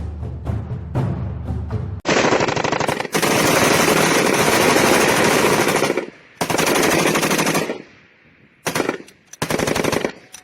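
Music with heavy drum beats, then a light machine gun firing on full automatic: one long burst of about four seconds, followed by three shorter bursts with brief pauses between them.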